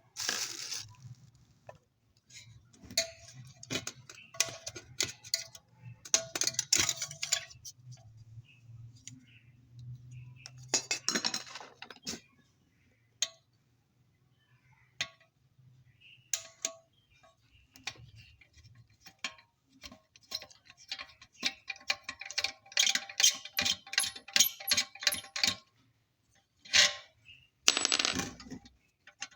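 Metal parts of an electric iron being handled: irregular clinks, taps and scrapes, some with a short metallic ring.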